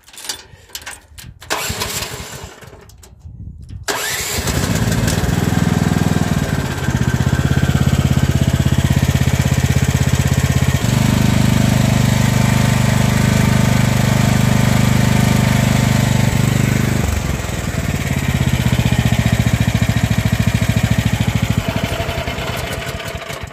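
Mini excavator's engine starting on the key about four seconds in, then running steadily. It runs louder for about six seconds in the middle and is shut off just before the end.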